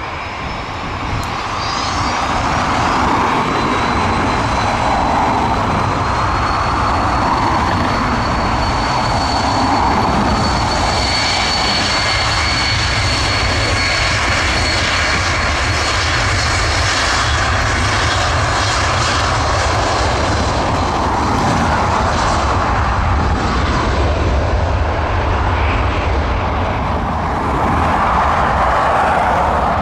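Jet airliner engines running loud and steady as a plane goes along the runway close by, a deep roar with a high whine that rises slightly and holds for several seconds before fading.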